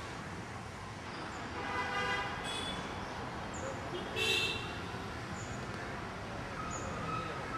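Steady road-traffic noise with two short vehicle horn toots, the second one louder.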